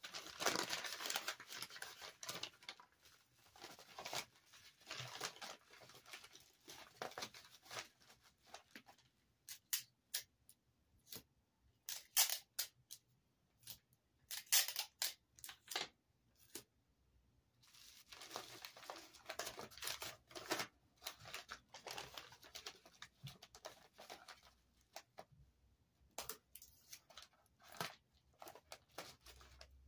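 Bubble wrap crinkling and rustling as it is handled and wrapped around a small box by hand. It comes in irregular spells, with a stretch of sharper, separate crackles in the middle.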